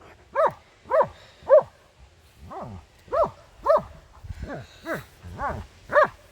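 A dog barking repeatedly, about two barks a second, ten or so barks in a row with a brief pause about two seconds in.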